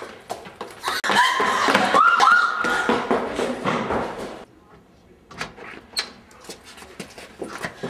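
Hurried running footsteps and a door banging, then screaming with rising pitch from about one to three seconds in. More quick footsteps and door knocks follow near the end.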